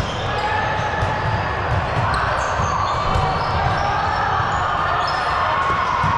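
Indoor volleyball game in a gym hall: shoes squeak on the court floor, the ball is struck a few times, and players' voices echo over a steady low hum of the hall.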